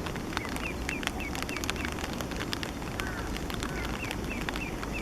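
Partly grown Eastern spot-billed duck ducklings peeping: runs of short high peeps, with a couple of lower downward-sliding calls about three seconds in. Scattered sharp clicks and a steady background hiss run underneath.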